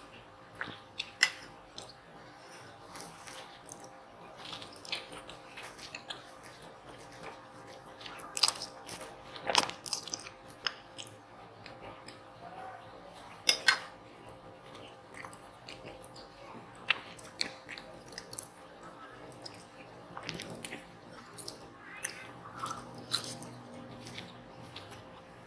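Close-up chewing of spicy instant noodles and grilled lamb, with scattered sharp clicks of a metal fork against the plate, the loudest about a second in, around eight to ten seconds in, and again near thirteen seconds.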